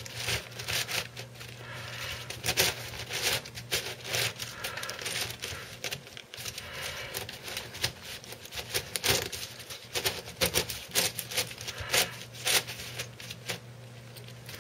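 Pochmann Super Petaminx twisty puzzle being scrambled by hand: a fast, irregular run of plastic clicks and rattles as its layers are turned.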